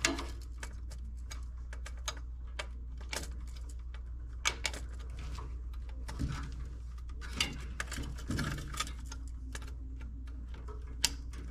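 Scattered small clicks and taps of wire connectors and plugs being pulled off and handled on an HVAC furnace control board, over a steady low hum.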